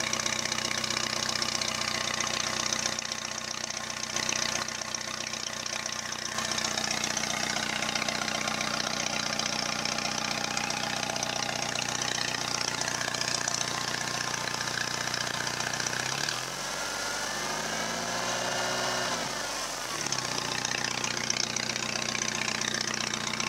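Chevrolet S-10 pickup engine idling loudly through a short open exhaust pipe that exits straight up through the hood, revved once about two-thirds of the way through, its pitch rising and falling over a few seconds. The owner says the bottom end is knocking and the head gasket is blown.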